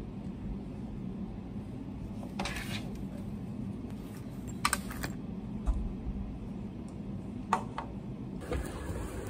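A few separate light clicks and taps, with a short rustle before them, over a steady low hum.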